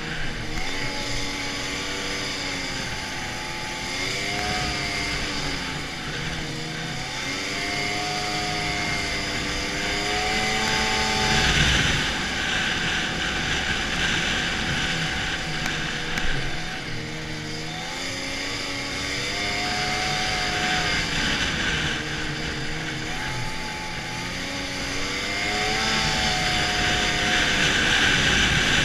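Arctic Cat snowmobile engine running on the move, its pitch rising and falling again and again as the throttle is worked. A rushing hiss swells under it about a third of the way in and again near the end.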